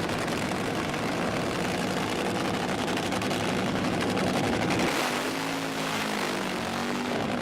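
A vehicle engine running steadily under broad road noise. About five seconds in, the engine note changes and a second tone slides down in pitch.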